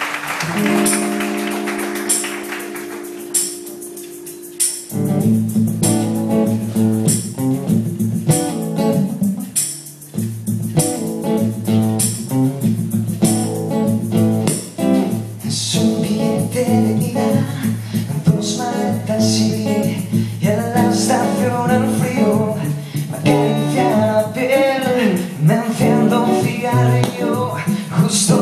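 Live acoustic guitar music: a chord rings and fades, then steady rhythmic strumming starts about five seconds in, with singing over it in the second half.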